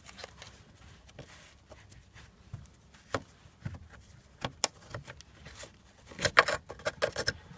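A rubber lower turbo hose being worked and pulled off its pipe under the engine: scattered clicks and knocks, with a louder run of rattling knocks near the end as one end comes free.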